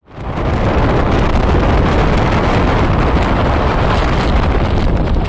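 Storm-force wind buffeting the microphone: a loud, steady, rumbling rush of gusts with the low end churning throughout.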